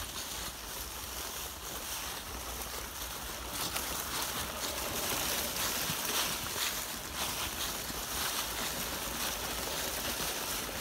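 Dry fallen leaves rustling and crackling under the tyres of an RC crawler truck as it pushes slowly through them, a steady hiss with small crackles.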